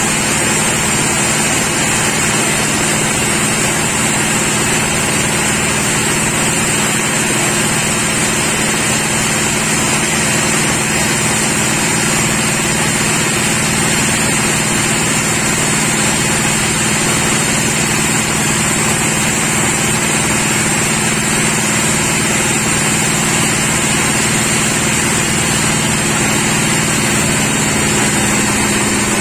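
Sawmill machinery running steadily: a constant low hum with a high whine above it, unchanging in pitch and level throughout.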